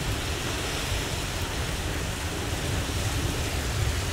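Steamboat Geyser erupting: a steady rushing of water and steam with a strong low rumble underneath.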